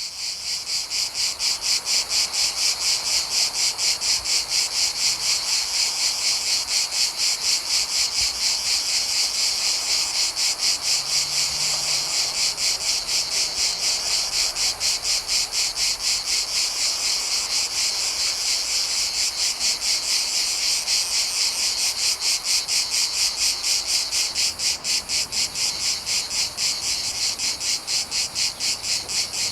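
Cicadas singing in a steady chorus: a loud, high buzz that pulses rapidly, about four times a second.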